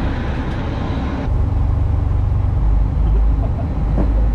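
Steady low rumble of a charter fishing boat's engines running. About a second in the sound changes abruptly, becoming deeper and louder.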